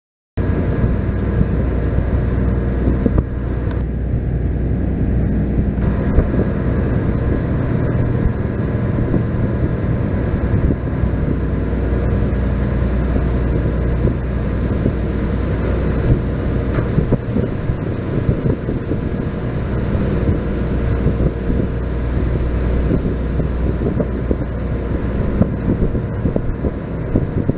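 Car ferry's engine running at a steady cruising hum, with wind buffeting the microphone.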